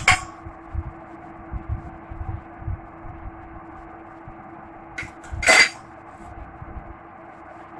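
Light handling at a glass mixing bowl while powdered sugar is tipped in: soft low knocks in the first few seconds, then a brief clink about five and a half seconds in. A steady low hum runs underneath.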